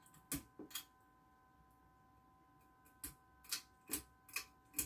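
Plastic pull-chain switch of a 30-inch six-blade ceiling fan clicking as the chain is pulled: a few quick clicks soon after the start, then a run of sharp clicks about two a second from about three seconds in.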